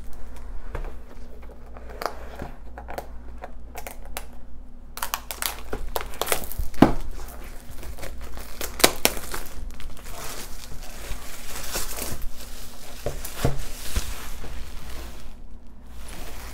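Handling noise from a long cardboard diamond painting kit box and its packaging: crinkling and rustling with scattered taps and knocks. The sound gets busier from about five seconds in.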